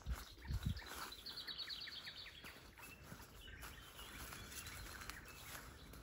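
A small songbird sings a fast trill of short repeated notes that falls in pitch, about a second in, with fainter bird calls after it. A couple of soft low thumps come just at the start.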